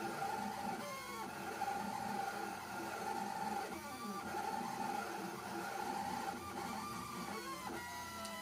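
Stepper motors of an MPCNC Primo CNC machine driving a pen plotter, whining in tones that glide up and down as the axes speed up, slow and change direction, with a steadier held tone that comes and goes about every second.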